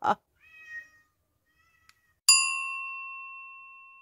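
A cat's short, faint meow, then a single bright chime struck once, ringing and slowly dying away.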